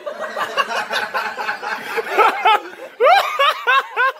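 Laughter in quick repeated bursts, growing loud about two seconds in, over a mix of voices.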